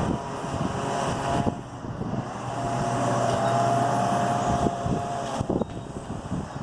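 A motor vehicle's engine hum, with steady tones strongest through the middle, over a constant rushing noise.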